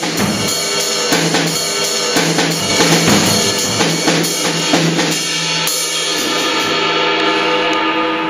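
Drum kit played in a steady rock beat, snare, kick and cymbal strokes evenly spaced, over sustained pitched notes. A little over halfway the drum strokes stop and the notes ring on.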